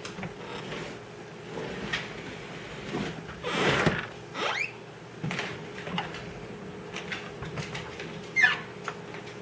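Husky puppy giving short high-pitched yelps that fall in pitch, the loudest near the end. A brief burst of rustling noise comes around the middle.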